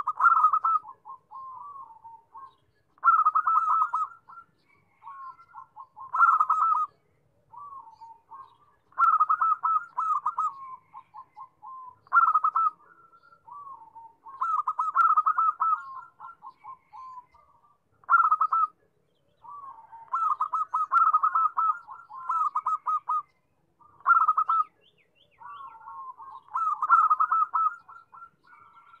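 Zebra dove (perkutut) cooing: repeated phrases of rapid, rolling, trilled coos, some loud and some softer, following each other every one to three seconds, with several running together about two-thirds of the way through.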